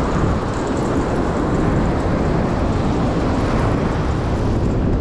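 Steady rushing noise of wind on the microphone mixed with ocean surf.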